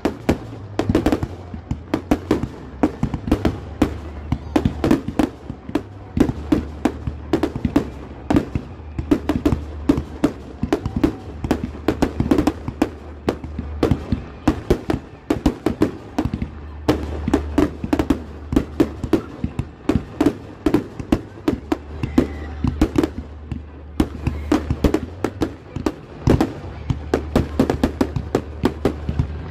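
Fireworks display: a dense barrage of aerial shells launching and bursting, many sharp bangs and crackles a second in quick succession, with a steady low rumble underneath.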